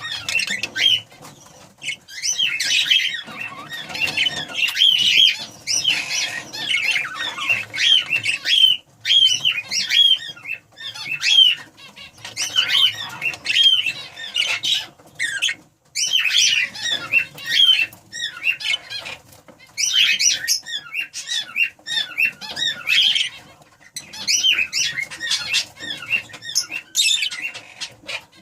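Budgerigars chattering: fast, high, squeaky calls in busy bursts of a second or two, broken by short pauses.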